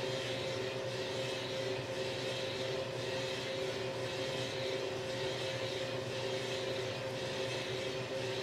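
Drum coffee roaster running steadily: the even hum of its motor and fan, with two steady tones over a hiss and no change in level.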